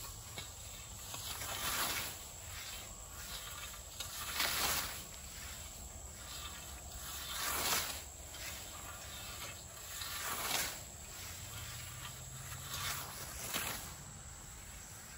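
European scythes mowing tall grass: short hissing swishes as the blades sweep through the stalks, one about every one to three seconds from two mowers working at once.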